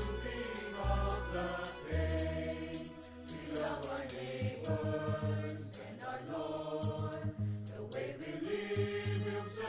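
Music: a choir singing over a band accompaniment with bass and a steady drum beat.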